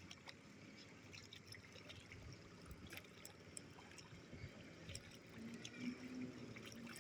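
Faint trickling and dripping of water, with scattered light ticks.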